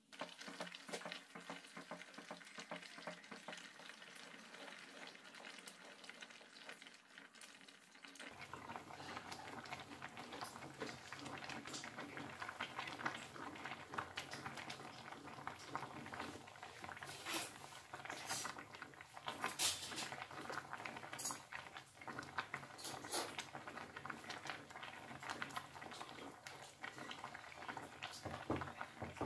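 Grated carrots and milk bubbling at a boil in a metal kadhai, with a spatula stirring and scraping through the pan; the milk is being cooked down until it dries. The bubbling and clicking gets louder about eight seconds in.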